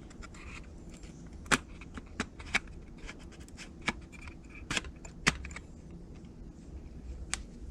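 Sharp plastic clicks and light taps as a replacement LCD display is handled and fitted into a Nissan Quest instrument cluster, with about half a dozen louder clicks scattered irregularly through.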